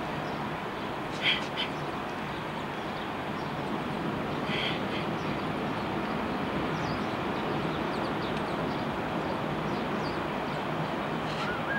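Steady rushing noise of sea surf and wind, with a few short high chirps about a second in and again near the middle.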